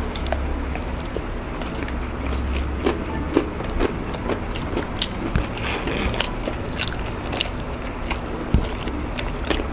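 Close-miked biting into and chewing crispy Jollibee Chickenjoy fried chicken: irregular crackles of the breaded skin crunching between the teeth, with fingers tearing at the piece near the end.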